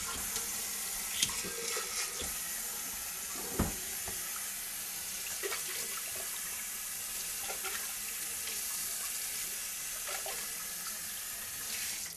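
Water running steadily from a tap into a sink, with a couple of light knocks in the first few seconds; the water cuts off abruptly right at the end.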